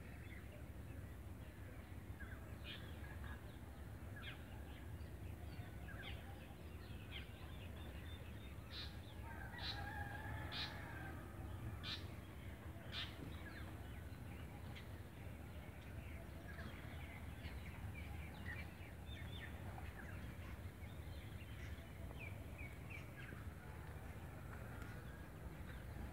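Birds calling in many short chirps and calls, busiest and loudest from about 9 to 13 seconds in, over a steady low rumble.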